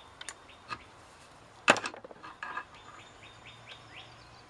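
Scattered small metal clicks and one sharp loud click from hand tools as screws are turned to pull a part off a chainsaw, then a quick run of faint squeaky ticks, about five a second.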